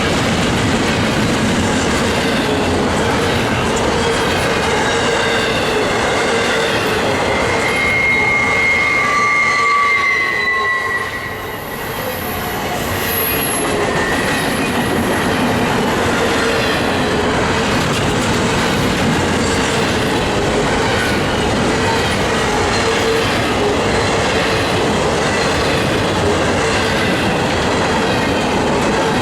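Intermodal freight train rolling past at track speed, with a steady loud rumble and clatter of wheels on rail. About eight seconds in there is a brief wheel squeal that slides down slightly in pitch.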